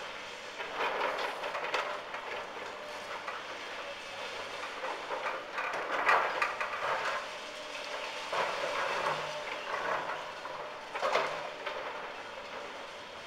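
Hydraulic excavator with a demolition grab tearing down a brick building: irregular crunching and clattering of breaking masonry and falling rubble, loudest about six seconds in and again near eleven seconds. A steady engine hum runs underneath.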